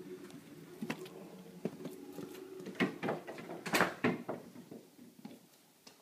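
Clicks and knocks from an interior door being handled and opened. The loudest knocks come in a cluster a little under four seconds in, then the sound fades.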